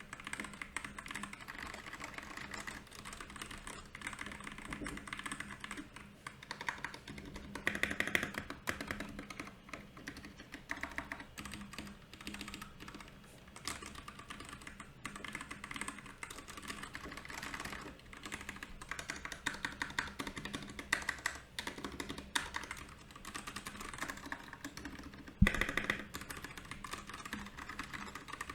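Continuous fast typing on a mechanical keyboard, a Royal Kludge RK68 with brown or milky yellow switches, a steady stream of key clicks. One much louder thump comes near the end.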